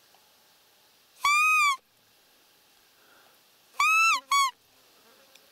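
Roe deer lure call (манок) blown to draw in a buck, giving three short whistled squeaks with an arched pitch. There is one about a second in, then a longer one followed quickly by a short one near the end.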